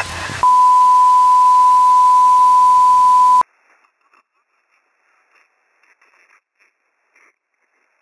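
Emergency-broadcast-style test tone: one steady, loud, pure beep held for about three seconds over a hiss of static. It cuts off suddenly, leaving only faint scattered crackles.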